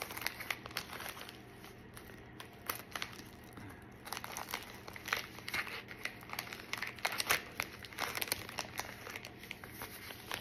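Plastic shipping mailer being handled and torn open by hand: irregular crinkling and crackling of the plastic.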